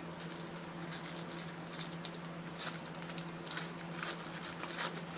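Trading cards being handled: soft, scattered rustles and light flicks of cards and card-pack material, over a steady low hum.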